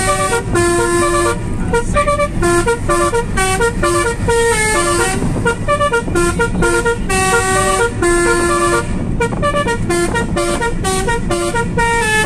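Basuri musical air horns on a car playing a melody: a quick run of short horn notes, with a few held for about a second, heard from inside the moving car over steady road noise.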